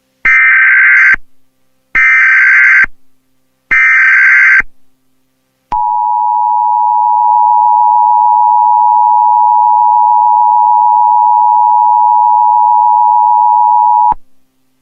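Emergency Alert System alert tones: three screeching SAME digital header bursts, each about a second long, then the steady two-tone EAS attention signal for about eight seconds, cutting off sharply. The alert is at its normal pitch.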